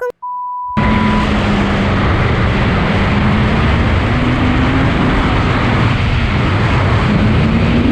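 A short steady beep, then under a second in the Kawasaki Ninja H2's supercharged inline-four cuts in loud, running at a steady cruise with heavy wind noise as the bike is ridden. The engine note holds fairly even, rising and falling slightly.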